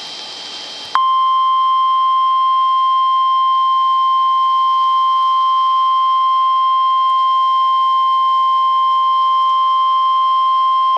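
NOAA Weather Radio's 1050 Hz warning alarm tone: one steady, loud beep lasting about ten seconds, starting suddenly after about a second of hiss. It signals that a warning, here a severe thunderstorm warning, is about to be broadcast.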